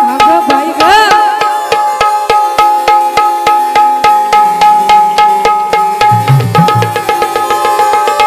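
Dholki drums played in a fast, steady rhythm under an electronic keyboard holding a melody, with a brief bend in pitch about a second in: the instrumental lead-in to a Marathi Khandoba devotional song.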